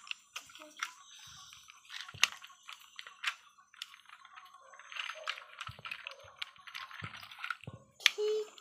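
Small hard plastic clicks and snaps as a transforming toy police car is twisted and folded by hand, with a stretch of water sloshing in the middle.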